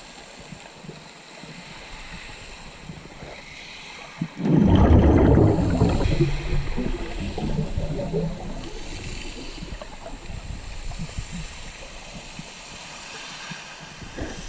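Water gurgling and sloshing. About four seconds in a loud rush of water starts suddenly, lasts a few seconds, then fades into irregular sloshing.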